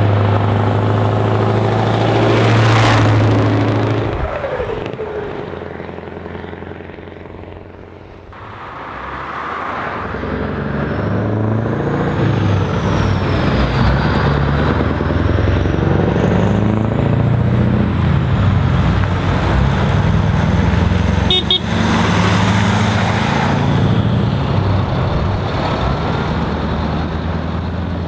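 Heavy diesel trucks driving past one after another: the first passes close and loud about three seconds in and fades away. From about nine seconds another truck builds up, its engine note climbing and dropping back in steps as it accelerates and shifts up, with a short click about 21 seconds in.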